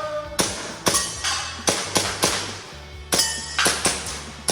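An airsoft pistol firing a quick string of about eight shots, roughly two a second, with a short pause in the middle. A few hits are followed by a brief metallic ring from steel targets.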